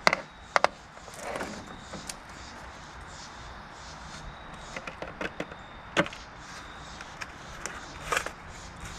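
A thin plastic jack-o'-lantern mold being cut and peeled off a concrete pumpkin: sharp plastic snaps and cracks, the loudest in the first second and a few more near the end, with rustling and scraping of the plastic in between.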